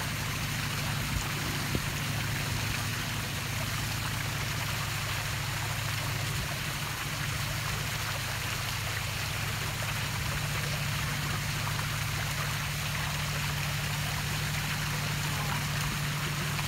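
Steady rush of water, with a steady low hum running underneath.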